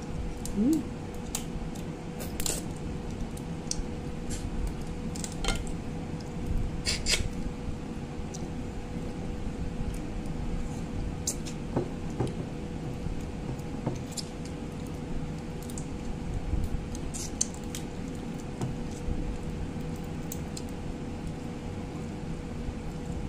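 Cooked crab shell cracking and clicking in the fingers as the legs and claws are broken apart and picked at, in scattered small snaps, over a steady background hum.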